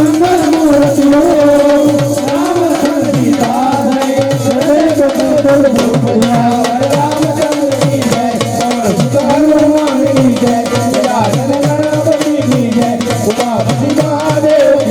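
Instrumental passage of a Gujarati devotional song (bhajan): a wavering melody line played over a steady tabla and drum rhythm.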